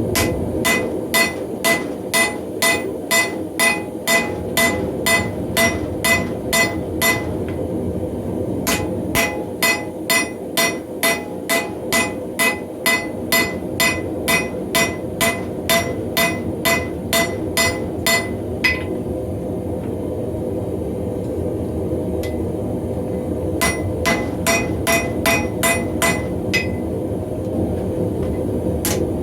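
Hand hammer striking hot mild steel on an anvil to draw the bar out longer and thinner. The blows are steady, about two or three a second, each with a ringing metallic note, and they pause for a few seconds about two-thirds of the way through.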